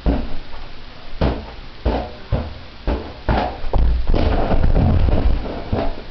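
A back scratcher batting a big balloon, giving a string of sharp hollow thwacks roughly every half second to second. A heavier low rumble runs through the middle.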